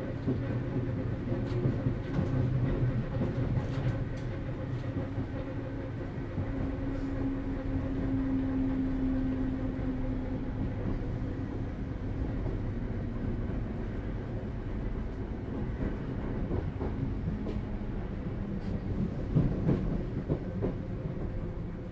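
Inside a BREL Class 319 electric multiple unit on the move: wheels rumbling on the rails under a steady hum from the GTO-thyristor-controlled DC traction equipment. The hum's pitch drops partway through, and there are a few rail-joint clacks near the end.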